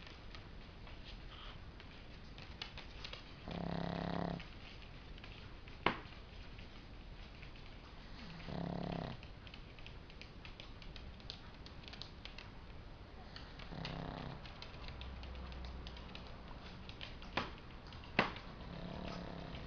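Dog snoring in its sleep: four pitched snores, each just under a second long, about every five seconds. Three sharp clicks fall between them.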